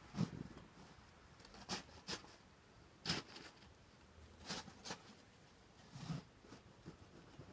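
Snow shovel scooping and scraping into deep packed snow in short, separate strokes, about seven of them, roughly one every second.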